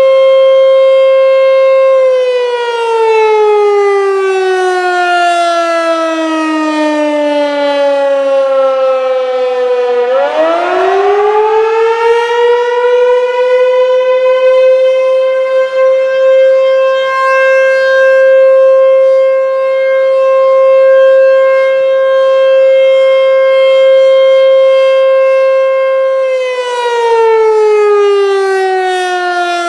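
American Signal T-128 electromechanical siren sounding its fire test signal: a loud steady tone at full pitch that winds down for about eight seconds to roughly half its pitch, climbs quickly back up, holds steady for about twelve seconds, then starts winding down again near the end.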